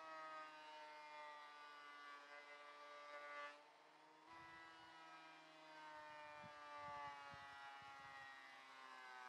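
Vevor 12.5-inch benchtop thickness planer running, a faint motor whine that slowly drops in pitch. The whine breaks off about three and a half seconds in and starts again a moment later, with a few low knocks in the middle.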